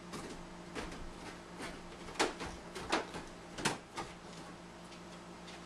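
Footsteps coming down wooden stairs, a thud about every half second or so, the heaviest steps near the middle, over a faint steady hum.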